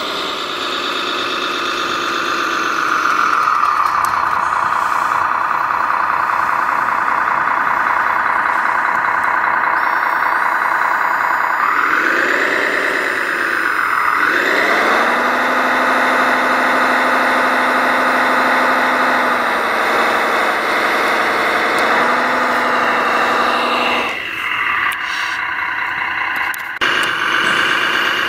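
Radio-controlled model Liebherr LRT 1100-2.1 crane running, a steady mechanical whine with a motor-like hum. Its pitch falls about three seconds in, swoops up and down twice around the middle, holds steady, then drops away and starts up again near the end as the crane is worked.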